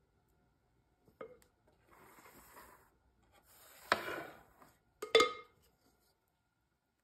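A glass mixing bowl and metal cake pans being handled on a stone countertop while batter is scraped out with a silicone spatula. There is a light knock, two stretches of scraping and rubbing, and sharp clinks about four and five seconds in, the last the loudest.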